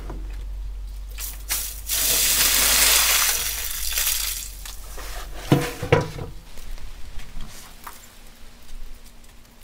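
Water poured out of a large aluminium basin, splashing onto the ground for about two seconds, followed by two sharp knocks.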